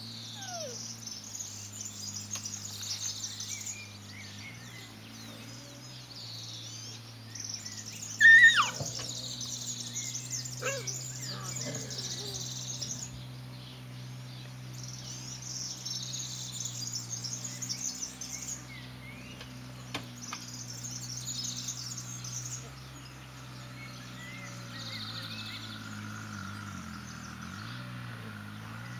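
Songbirds singing in runs of a few seconds with short pauses, over a low steady hum. About eight seconds in comes a single sharp, high yelp that falls in pitch, from one of the Rhodesian Ridgeback puppies at play.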